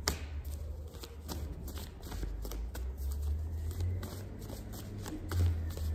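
Tarot cards being shuffled and handled: a run of short, irregular flicks and taps, over a low steady hum.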